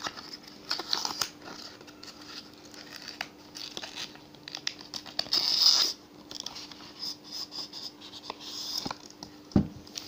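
A cardboard box being opened by hand and the spray bottle slid out: scratchy crinkling and tearing of the card, with a longer scraping rustle about halfway through. Near the end comes one dull thump as the bottle is set down.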